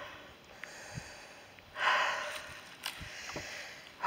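A hiker breathing hard while climbing uphill on foot: a loud, breathy exhale about two seconds in, with fainter breaths between and a few soft thumps.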